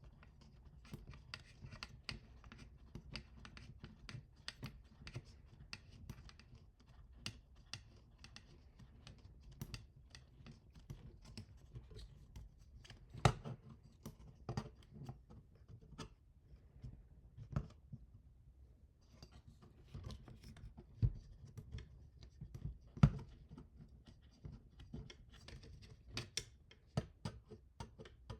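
Hand assembly of 3D printer frame parts: a steady run of light clicks, scratches and taps from handling small parts and tools, with a few sharper knocks, the loudest about 13 and 23 seconds in.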